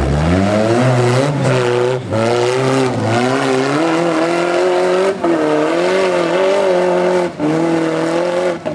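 Off-road trial buggy's engine revving hard under load as it scrambles up a steep rock slope, the revs climbing in the first second and then wavering. The revs drop briefly about three times as the throttle is lifted.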